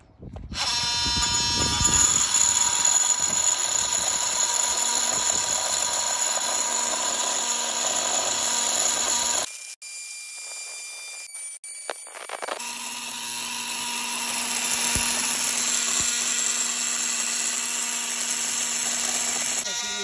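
Milwaukee oscillating multi-tool with a metal-cutting blade buzzing steadily as it cuts through a steel Huck lockbolt on a semi truck frame. It starts about half a second in, stops for about three seconds midway, then cuts on.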